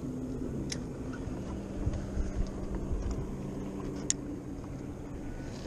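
A boat motor runs with a steady hum that dips slightly in pitch about half a second in, while wind rumbles on the microphone. There are two light sharp clicks, one under a second in and one about four seconds in.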